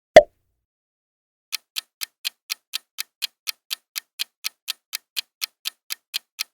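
A short, loud thump of a transition sound effect just after the start, then after a pause a countdown timer ticking like a clock, evenly at about four ticks a second.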